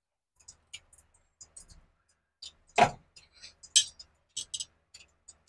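A steel spoon clicking and scraping against plates as potato filling is scooped and spread onto bread rounds. There is one louder knock about three seconds in and a sharp clink just after.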